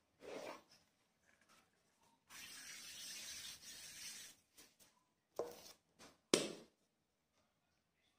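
A hand spreading flour across a silicone pastry mat: a dry rubbing that lasts about two seconds. It is set between a soft knock at the start and two short thuds later on, the second thud being the loudest sound.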